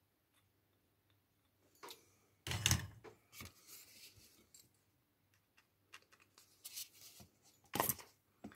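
Small parts and hand tools being handled at a workbench: scattered clicks, taps and rustling, with a louder clatter about two and a half seconds in and another near the end.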